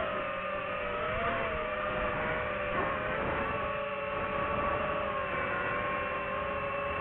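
DJI FPV drone's motors and propellers whining steadily, the pitch wavering a little at first, then holding level.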